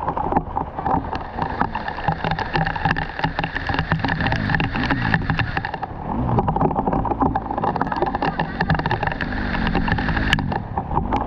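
Trail motorcycle engine revving, its pitch rising and falling as it works through mud and water, over a dense crackling rattle.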